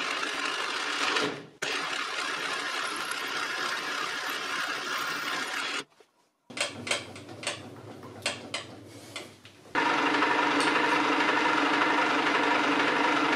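Twist drill in a round-column mill-drill boring the screw hole through the square bar stock: a steady drilling noise with a brief break about a second and a half in. After a few scattered clicks, a slitting saw on the same spindle cuts the slot in the bar from about ten seconds with a steady ringing whine, the warning sound of a totally dull sawblade.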